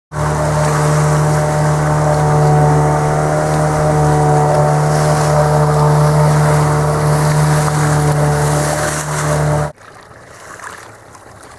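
Small boat's motor running loud and steady with water rushing along the hull, then cutting off suddenly near the end, leaving quieter sea sounds.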